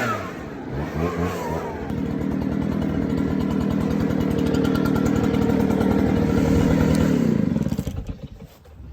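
Gas leaf blower engine revving up, running steadily at high throttle, then winding down and stopping about 8 seconds in. It is being used to blow out tire tracks left in wet grass by mowing.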